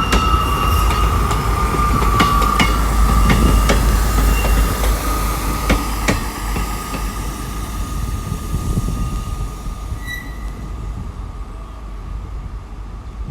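Class 158 diesel multiple unit passing and drawing away. Its wheels click over the rail joints with a steady high-pitched squeal, and the train fades gradually over the second half.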